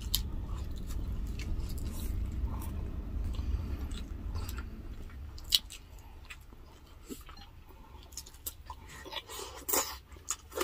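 Close-miked chewing and biting of food eaten by hand, with wet mouth sounds, a low rumble through the first half and scattered sharp crunches and smacks, the loudest a little past halfway and several near the end.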